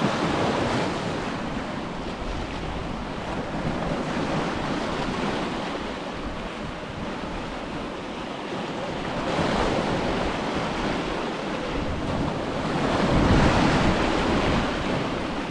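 Ocean waves breaking and washing up a beach, swelling louder three times: near the start, about nine seconds in, and loudest about thirteen seconds in. Wind buffets the microphone with a low rumble.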